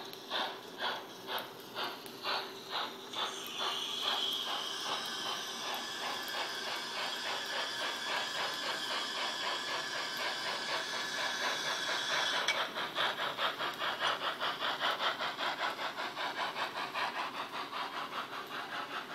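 Model steam locomotive's sound unit playing steam chuffs, slow at first and quickening, with a steady steam hiss over them from about four seconds in that cuts off sharply about twelve seconds in.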